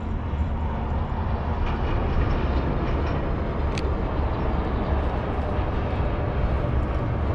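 Steady low rumble of wind on the camera's microphone, with one sharp click about four seconds in.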